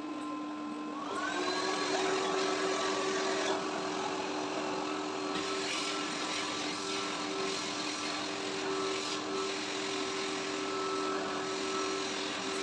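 AGARO ICON 1600-watt bagless cyclonic vacuum cleaner running with a steady motor whine. About a second in, its pitch rises and it gets a little louder, then holds steady, with a few light knocks.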